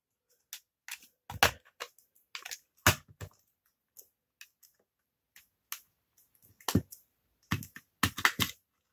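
Plastic snap-fit clips of a small electronic device's case popping as the shell is pried open with a plastic guitar pick: several sharp cracks spread through, with fainter ticks and clicks of the pick between.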